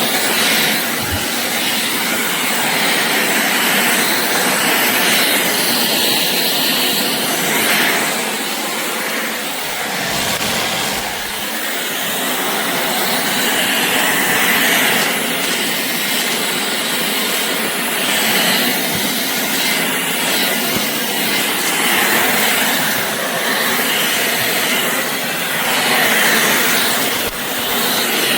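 Shark Clean & Empty cordless stick vacuum running steadily as it sweeps a floor, its motor and suction noise swelling and easing a little as it is pushed back and forth.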